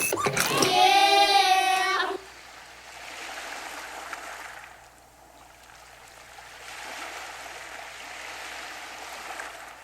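A voice sings a wavering, sliding note for about two seconds and cuts off abruptly. Then a soft wash of water follows, swelling and ebbing twice like small waves.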